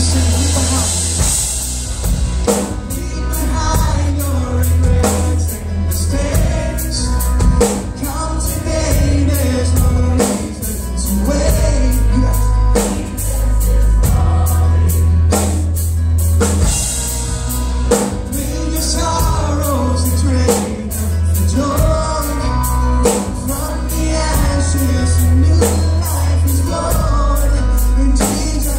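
Live worship band playing a song with a lead singer: drum kit, electric and acoustic guitars, keyboard and a heavy bass under the voice, with a steady beat.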